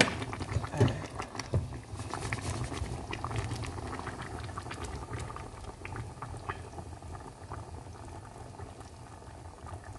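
Fish and okra stew simmering in a pan on the stove, the broth bubbling with a steady, irregular crackle of small pops. A few louder pops come in the first two seconds.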